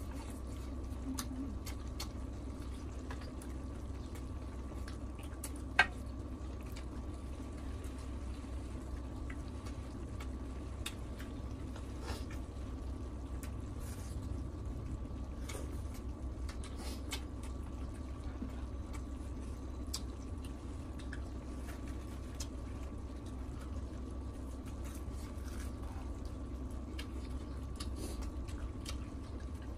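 Wet eating sounds: chewing and slurping saucy stir-fried beef and octopus, with chopsticks clicking now and then against the grill pan and dishes. One sharp click about six seconds in is the loudest sound. A steady low hum runs underneath.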